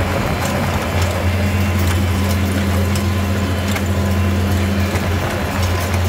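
Farmall 656 tractor engine running steadily at constant speed in the field, with faint regular clicking over the engine note.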